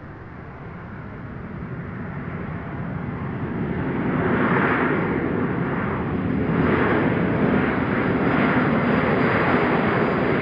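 Large-scale radio-controlled T-45 Goshawk model jet in flight, its engine noise swelling over the first four seconds as it comes closer, then holding loud and steady with a thin high whine above it.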